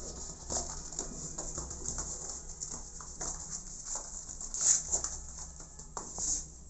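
Kittens moving about on cardboard: a run of small scratches and taps from their paws, with two louder rustles, one about two thirds of the way in and one near the end.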